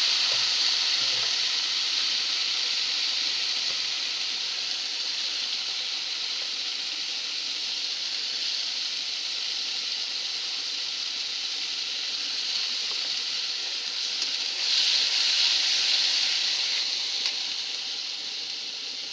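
Wet spice pastes (cumin, garlic and ginger) frying in hot oil with onions in a metal karai: a loud sizzling hiss that slowly settles into steady frying, swelling again briefly about 15 seconds in.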